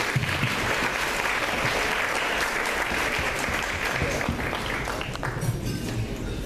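Audience applauding, a dense clapping that thins out and dies down near the end.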